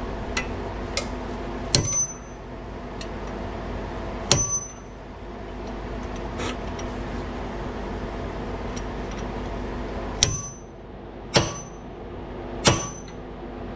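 Hammer striking a steel bit held in a seized brake-rotor retaining screw on a car's front hub, to shock the screw loose. Five sharp metallic blows with a brief ring, spaced irregularly, with lighter taps between them, over a steady low hum.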